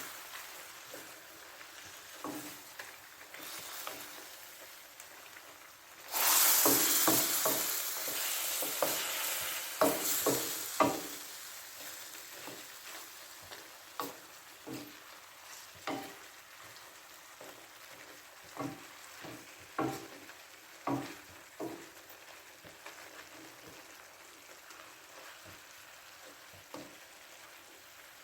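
Chicken and vegetables sizzling in a hot pan while being stirred, the utensil knocking and scraping against the pan. The sizzle surges loud for about five seconds a quarter of the way in, then the knocks come less often and the sizzle settles.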